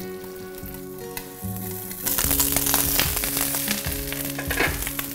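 Light background music, then about two seconds in, loud sizzling and crackling of food frying in a hot pan.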